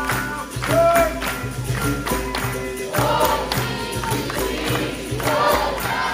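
Capoeira roda music: a bateria of berimbaus, pandeiros and an atabaque drum keeping a steady rhythm under singing. A single voice leads, and the group answers in chorus about three seconds in and again near five seconds.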